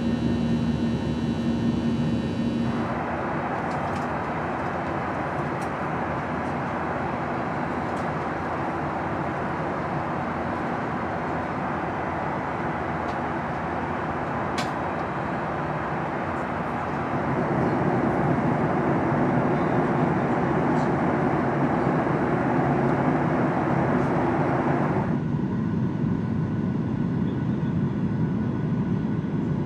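Steady jet engine and airflow noise heard inside the cabin of a Boeing 737-800. Its character changes abruptly about 3 seconds in, becomes louder and deeper about 17 seconds in, and its upper hiss drops away about 25 seconds in.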